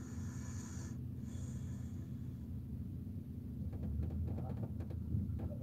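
Steady low engine hum inside the cab of a Fiat Ducato van, with two short hisses in the first two seconds.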